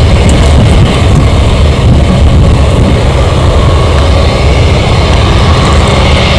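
Airbus A320's CFM56 turbofan jet engines running, a loud steady rumble with a hiss above it.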